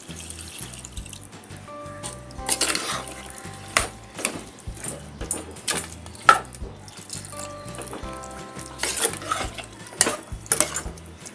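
Metal spoon stirring and scraping a wet, soupy masala mix in a metal pressure cooker, with scattered sharp clinks against the pot's side, over background music.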